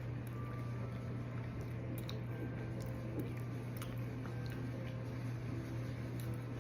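Close-up chewing of pizza rolls: soft wet mouth clicks and smacks, a few sharper ones scattered through, over a steady low hum.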